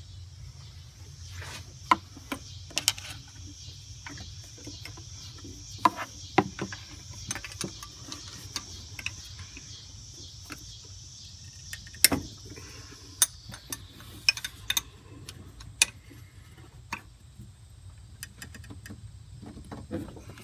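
Scattered metallic clicks and clanks of a wrench and a long screwdriver working on the fan clutch's mounting nuts as the nuts are broken loose.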